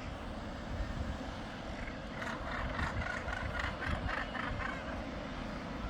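A rapid series of short, high calls from a seabird, about four a second for a couple of seconds in the middle, over a steady low rumble.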